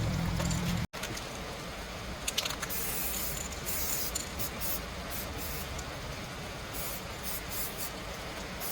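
Spray hissing in short repeated bursts over a steady background noise; a low hum cuts off abruptly about a second in.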